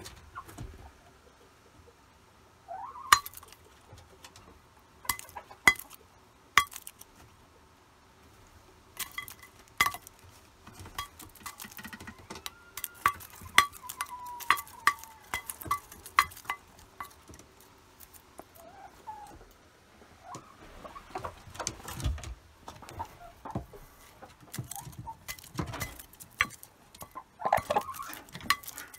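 Hens pecking beetles out of a metal bowl: irregular sharp clinks of beaks striking the bowl, with a few short hen calls in between.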